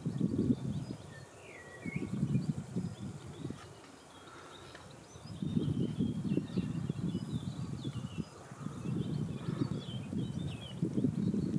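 Gusty wind rumbling on the microphone, swelling and easing, with small birds chirping in short high notes throughout.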